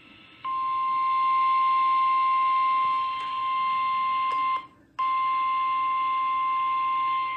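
Emergency alert warning tone, a single steady tone of about 1050 Hz (the NOAA Weather Radio warning alarm), signalling a severe thunderstorm warning. It starts about half a second in over a steady radio hiss, cuts out briefly about four and a half seconds in, then resumes.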